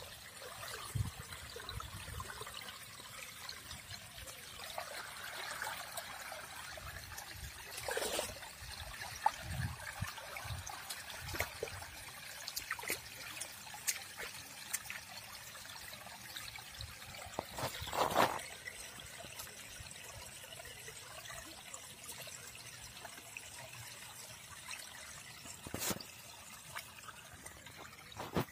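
Shallow paddy water trickling steadily over and through a woven bamboo-slat fish trap laid in a cut in the field bund, with a few louder splashes as hands work in the water.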